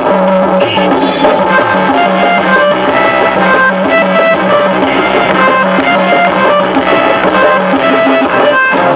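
Loud dance music with a steady, repeating beat, playing for the dancers.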